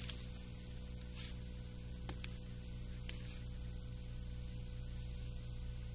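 Steady electrical mains hum with hiss on an old soundtrack, with a few faint ticks and soft swishes over it.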